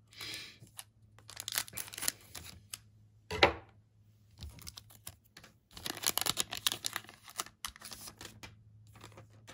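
Plastic trading-card pack wrapper crinkling and crackling in the hands as the pack is handled and opened, in irregular bursts with one sharp crack about three and a half seconds in and a busy run of crinkling near the end.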